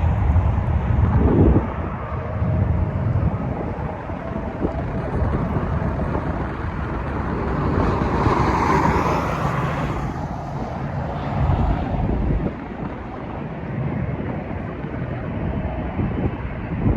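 Jet airliner engine noise, a steady rumbling roar that swells again about halfway through, with strong wind buffeting the microphone, loudest in the first second and a half.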